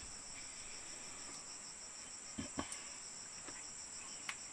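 Crickets chirping in a steady, high, evenly pulsing chorus, with a few faint taps.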